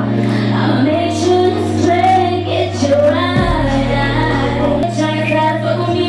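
A woman singing a song live over a backing track with deep bass notes held for a second or more at a time.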